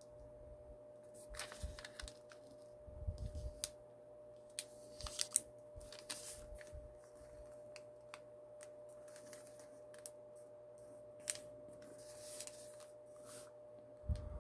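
Origami paper being folded and creased by hand: faint scattered crinkles, scrapes and taps of the sheet, over the steady hum of an electric fan.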